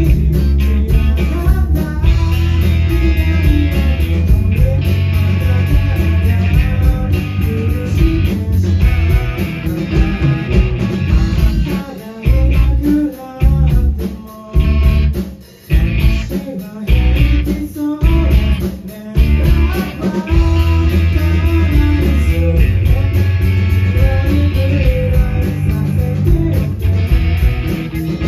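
Live rock band playing a song: electric guitar, bass guitar and drums with a singer. About halfway through, the band plays a run of stop-start hits, dropping out briefly several times before coming back in full.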